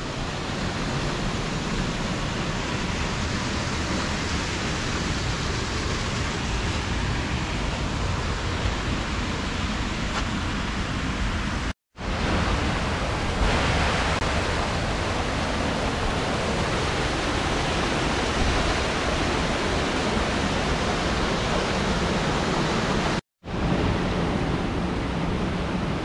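The Menzenschwander waterfall on the Alb, water rushing steadily down through the rocky gorge in a dense, even noise. It breaks off twice in brief silent gaps, about twelve and twenty-three seconds in.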